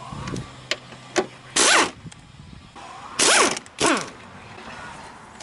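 Bolts being undone from a car door hinge with a tool. There are a few sharp metal clicks, then two short whirring bursts whose pitch rises and falls, about a second and a half apart.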